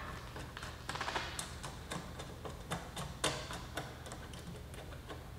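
Screwdriver turning a bolt through a plastic cord-storage bracket on a pressure washer's metal handle: a run of small, irregular clicks and ticks.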